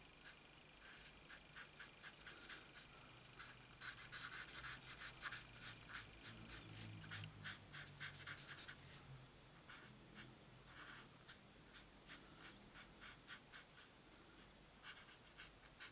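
Stampin' Blends alcohol marker nib scratching on cardstock in quick short colouring strokes, quiet, with a dense run of strokes in the middle that thins out toward the end.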